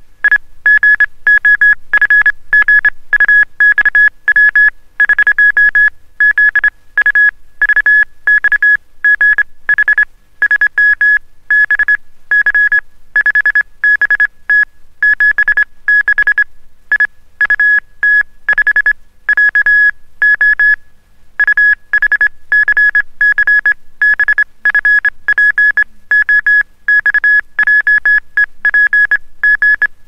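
Morse code sent on a medium-pitched oscillator: one steady high beep pitched at B-flat, keyed on and off in short dots and longer dashes with brief gaps between letters.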